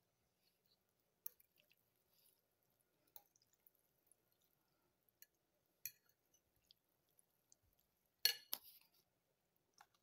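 Near silence broken by a few faint, short clinks, the loudest a quick cluster about eight seconds in: a metal fork against a ceramic plate.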